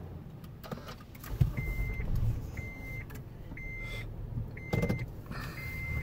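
An electronic beeper sounding a flat, high beep about half a second long once a second, over a low steady rumble inside a car in an automatic car wash bay. A sharp thump about a second in is the loudest sound, with a few clicks and brief swishes.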